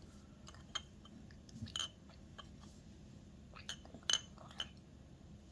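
An 11-month-old baby eating weaning food: faint scattered chewing and small mouth clicks, with a few light clinks, the sharpest a little after four seconds in.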